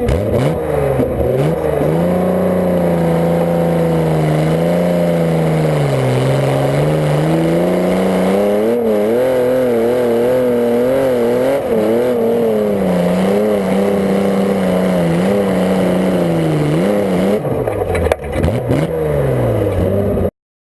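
Garden pulling tractor's engine running hard under load, its pitch repeatedly sagging and climbing again. About 18 seconds in there is a sharp loud crack as the revs dip and rise once more, and then the sound cuts off suddenly.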